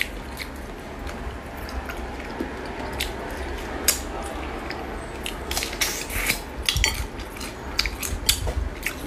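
Cooked hermit crab shells clicking and cracking as they are handled, pulled apart and eaten by hand: a scatter of sharp clicks that comes thicker in the second half.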